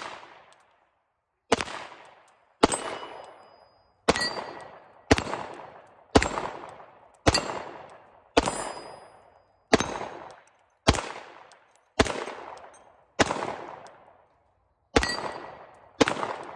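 Glock P80 9mm pistol fired at a steady pace of about one shot a second, around thirteen shots, each trailing off in a long echo. Several shots are followed by a short metallic ring, as from hits on steel targets.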